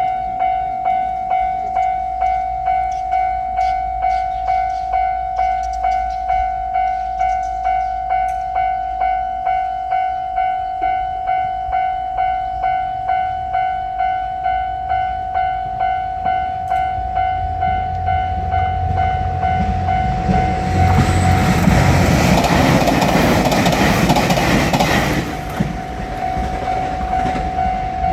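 Japanese level-crossing alarm ringing a steady, repeating electronic ding. Partway through, a train approaches and a JR Shikoku 2700 series limited express diesel railcar rushes through the crossing for about four seconds, then fades while the alarm keeps ringing.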